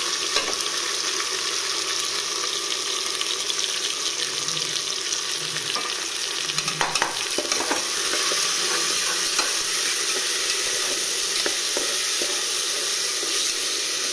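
Ginger-garlic paste sizzling in hot oil with fried onions in a pressure cooker, stirred with a metal spatula that scrapes and clicks against the pot. The sizzle is steady, with a cluster of scrapes about six to seven seconds in.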